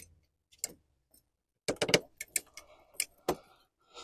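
Sharp metallic clicks and taps from a windscreen wiper arm being handled and fitted back onto its spindle: a quick rattle of clicks about halfway through, then a few single taps.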